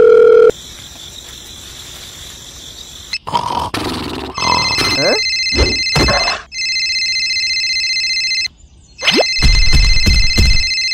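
Telephone sound effects: a steady dial tone cuts off half a second in, then after a stretch of hiss and a few short cartoon voice sounds, an electronic phone ringtone sounds in three bursts.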